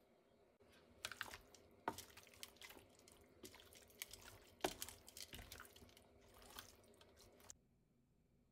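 Raw seasoned chicken pieces being tossed and turned in a bowl with a utensil: uneven wet squishing and slapping with sharp clicks. It starts about a second in and stops suddenly near the end.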